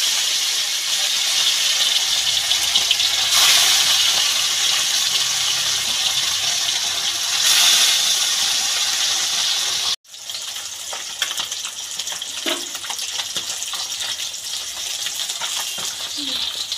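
Bata fish frying in hot mustard oil in a wok: a loud, steady sizzle that swells twice in the first half. About ten seconds in it breaks off for an instant and comes back quieter, with many small pops and crackles.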